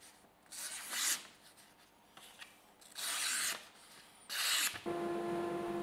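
A freshly sharpened knife slicing through a sheet of paper in three short swishes, each a clean cut: the edge passes the paper test. A steady hum starts near the end.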